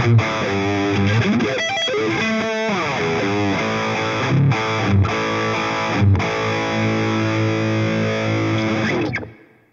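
Distorted electric guitar played through the Anvil amp-simulator plugin: a riff with bent notes and a few accented hits, then long held notes that fade out quickly about nine seconds in.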